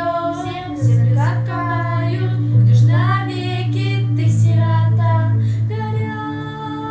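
A slow, sad song: a high singing voice over an instrumental accompaniment with a steady low bass line, with a long held note near the end.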